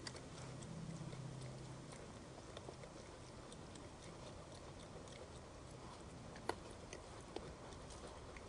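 Raccoon eating seed and corn off the ground: faint, irregular crunching clicks, with a sharper click about six and a half seconds in.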